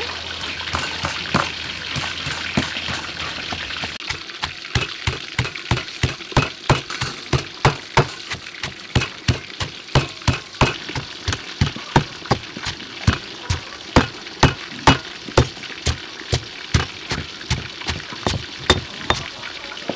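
Pestle pounding green and red chilies in a stone mortar: a steady run of sharp knocks, about two to three a second, that begins a few seconds in over a soft hiss.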